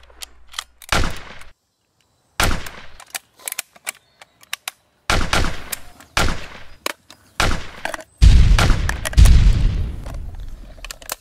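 Battle gunfire: single rifle shots cracking out one after another, each with a long echoing tail, over fainter scattered shots in the distance. About eight seconds in comes a longer, louder stretch of heavy firing with a deep rumble.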